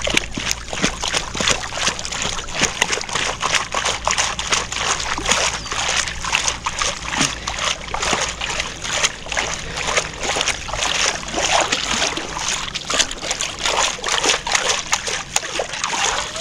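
Perforated metal sand scoop swished back and forth in shallow water, splashing and sloshing continuously as the sand washes out through its holes to sift out a detected target.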